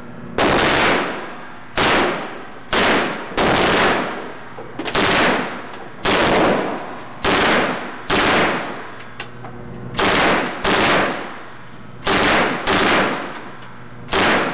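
Uzi 9mm submachine gun firing on full automatic in short bursts: about thirteen bursts of half a second or less, often in quick pairs, with pauses of one to two seconds between them.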